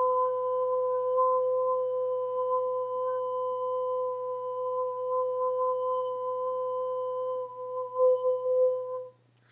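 A woman toning one long, steady, nearly pure sung note, wavering near the end before it stops abruptly.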